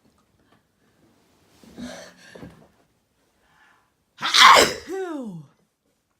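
A person sneezing once: two short, quieter catches of breath, then a loud sneeze about four seconds in that ends in a voiced tail falling in pitch.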